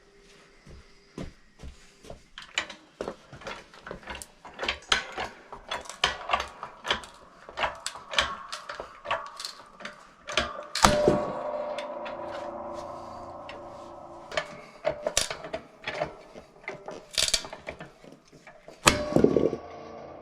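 Split firewood and the log splitter being handled: a long run of knocks and clatters of wood and metal. About eleven seconds in comes a loud bang followed by a few seconds of ringing, and there is another loud knock near the end.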